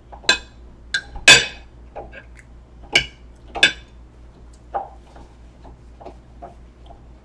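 Metal fork clinking and scraping against a plate of fried rice: several sharp clinks in the first four seconds, the loudest about a second in, then only faint soft sounds.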